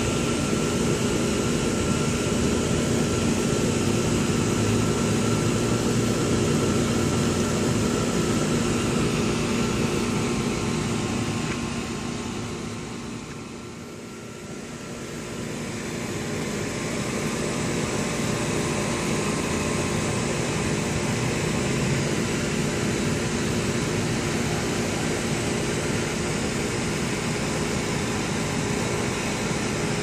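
Steady mechanical hum with a constant rushing noise, fading down for a few seconds near the middle and then coming back.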